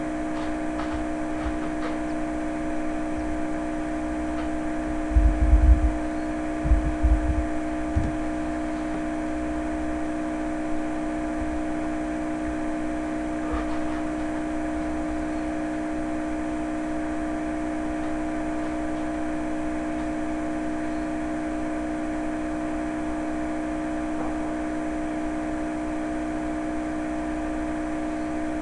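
A steady machine hum with a few constant tones over a noise haze, broken by a handful of low thumps about five to eight seconds in.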